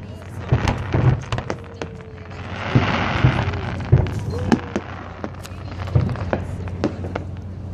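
Fireworks display bursting overhead: a rapid scatter of sharp bangs, with a louder stretch of hiss about three seconds in. Crowd voices run faintly underneath.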